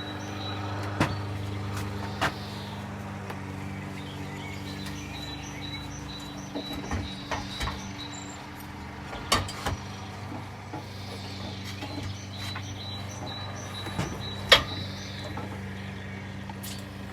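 Irregular metal knocks and clinks of tools and parts as a Can-Am dirt bike's engine is worked loose and lifted out of its frame, the sharpest knock about fourteen seconds in, over a steady low electrical hum.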